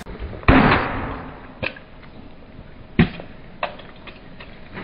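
A 10-pound sledgehammer smashing an aftermarket carburetor on a wooden chopping stump: a loud crash about half a second in, a second heavy blow about three seconds in, and a few lighter knocks and clicks between.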